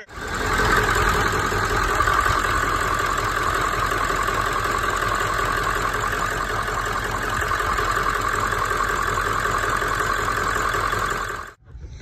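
Ford 7.3 Powerstroke V8 turbodiesel idling steadily with a valve cover off, running smoothly now that a shorted injector harness has been replaced. It stops abruptly about eleven and a half seconds in.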